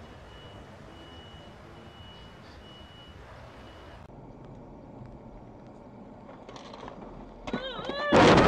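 Vehicle road noise heard from a dashcam, with a high electronic beep repeating a little under once a second. The beeping stops about four seconds in. Near the end a sudden loud burst of wavering, rising-and-falling pitched sound comes in.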